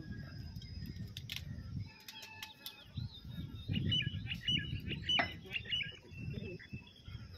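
Outdoor ambience: an irregular low rumble of wind on the microphone, with small birds chirping in quick repeated notes through the middle, and a few sharp clicks.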